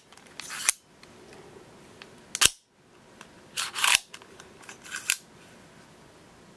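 Ratcheting mechanism of a handheld everyday-carry gadget worked by hand, giving sharp mechanical clicks and snaps in four short bursts a second or more apart.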